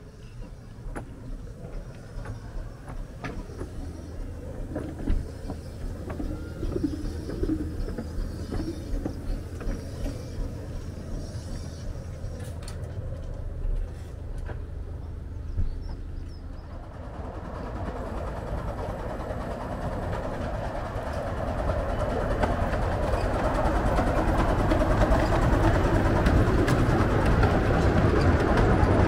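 Miniature steam railway train running on the line: a low rumble with scattered clicks at first, then the noise of the locomotive and its coaches grows steadily louder through the second half as the train draws near.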